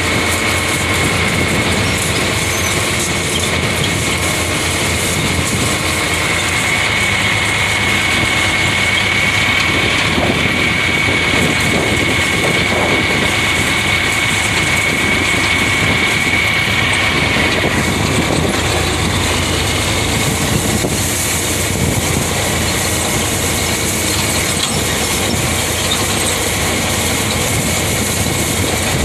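Tractor engine running steadily while pulling a baler, with a steady high-pitched whine through the first half that fades out a little past halfway.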